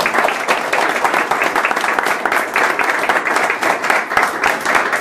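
A small crowd applauding: dense, steady hand-clapping that goes on without a pause.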